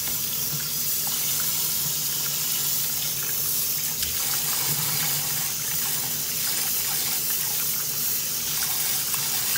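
Kitchen tap running steadily into a stainless steel sink, the water splashing over hands that rub pieces of blanched pork tail in a metal colander to rinse them. The running water stops abruptly at the end.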